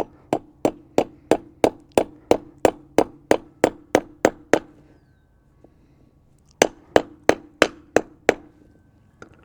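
Hammer blows on metal, about three a second: a run of about fourteen strikes, a pause of two seconds, then six more, each leaving a short ring. The hammering knocks the repair parts together.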